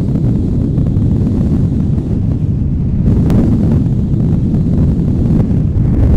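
Wind buffeting the microphone: a heavy, uneven low rumble with a single faint click a little past halfway.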